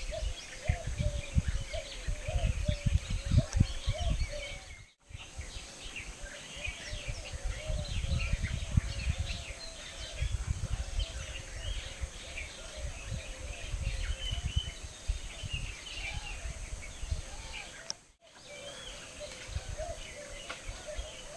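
Wild outdoor ambience: wind gusting on the microphone, many birds chirping and a repeated low warbling call. The sound drops out briefly twice, where the footage is cut.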